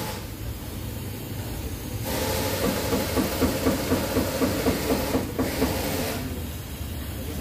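A running engine with a steady hiss, fuller and more rhythmic from about two seconds in until about six seconds in.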